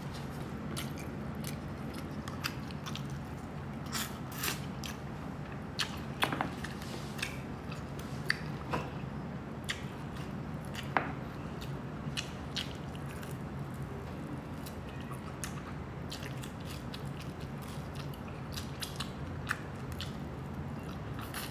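A person chewing and biting into crispy lechon kawali (deep-fried pork belly) with rice, with scattered sharp crunches at irregular intervals over a steady low hum.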